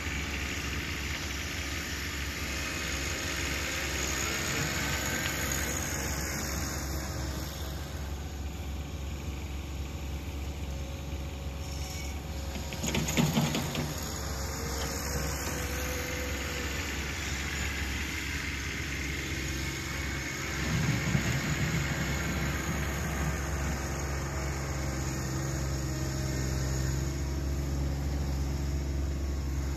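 John Deere 1026R compact tractor's three-cylinder diesel engine running steadily while it works the front loader on a snow pile, with two brief louder spells, one near the middle and one about two-thirds of the way through.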